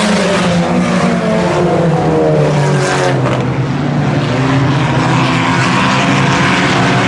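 Several IMCA Sport Compact race cars' four-cylinder engines running together on a dirt oval, their pitches rising and falling as they circle the track, at a steady loud level.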